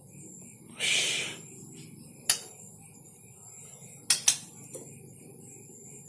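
A short rustle about a second in, then a sharp click and later a quick pair of clicks from a wire bird cage holding a white-rumped shama, over a steady faint high-pitched tone.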